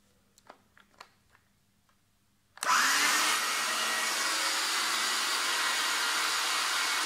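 Florabest cordless pole pruner's electric motor driving its chain, running free on its repaired lithium battery pack, which has a new 18650 cell. A few light handling clicks come first. The motor then starts suddenly about two and a half seconds in, spins up, and runs steadily.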